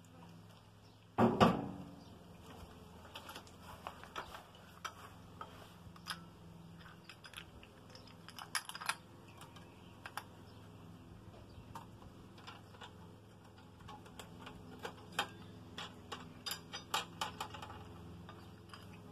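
Brushcutter parts, including the plastic blade guard, being handled during assembly: one loud knock about a second in, then scattered light clicks and rattles.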